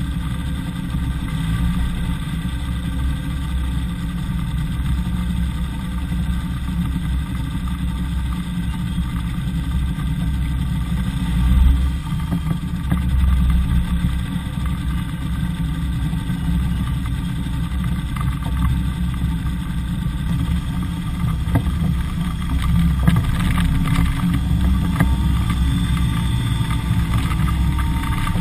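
Ultralight trike's pusher engine running steadily at idle while the trike taxis over grass. A faint tone rises and falls near the end.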